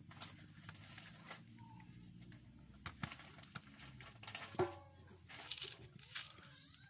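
Scattered light knocks and clicks from work on a dented motorcycle fuel tank, with one sharper metallic knock that rings briefly about halfway through, over a low steady hum.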